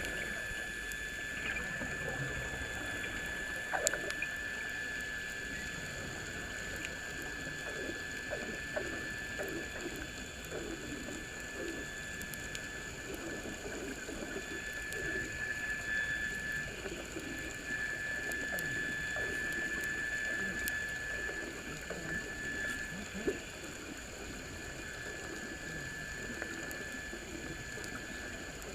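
Underwater sound: a steady high whine with many short, falling chirps like bubbles, and a couple of clicks.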